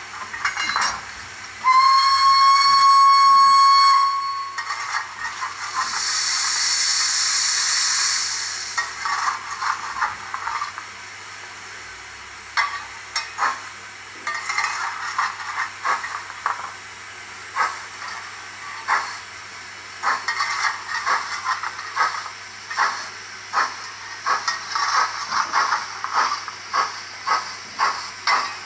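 Steam sound from a model Hawthorn Leslie 0-4-0 saddle tank's sound decoder. It gives a whistle blast of about two seconds, then a hiss of steam, then exhaust chuffs that start slowly and quicken as the engine pulls away.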